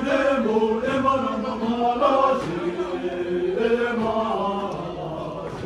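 Voices chanting a Buddhist prayer on held notes that step up and down in pitch, growing quieter near the end.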